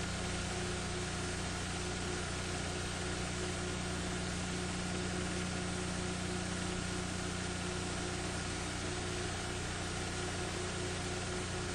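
Steady hiss with a low, even hum and no other sound: the background noise of a transfer of footage that has no recorded audio.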